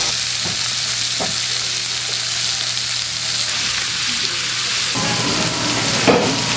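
Slices of pork belly (samgyeopsal) sizzling steadily as they grill on a hot griddle pan, with a few light knocks and clatter near the end.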